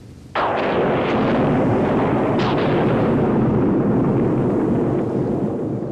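Thunderclap: a sudden crack about a third of a second in, a second crack about two seconds later, then a long rumble that eases slightly near the end.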